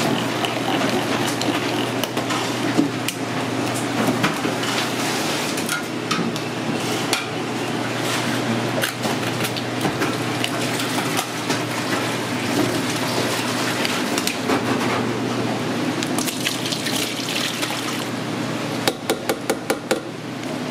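Large metal cans of pickled sliced jalapeños being handled, drained and emptied into a plastic bin: liquid pouring and splashing, with metal clatter and knocks over a steady machine hum. Near the end comes a quick run of about six sharp knocks.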